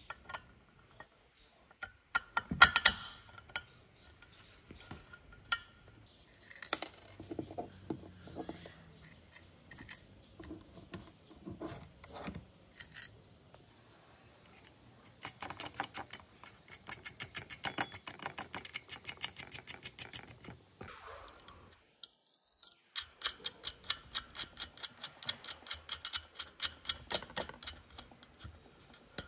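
Small metal screws and nuts clicking and clattering against a painted telescope tube as bolts are set through its holes and nuts are threaded onto them by hand, with two long runs of rapid ticking in the second half.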